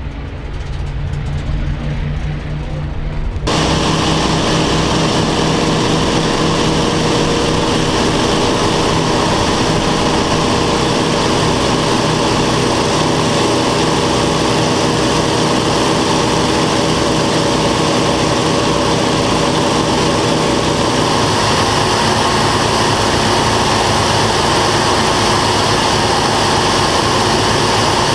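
Grumman F7F Tigercat's twin Pratt & Whitney R-2800 radial engines. They are faint at first as the aircraft taxis at a distance, then, from about three and a half seconds in, heard from inside the cockpit in flight as a loud, steady drone mixed with rushing slipstream.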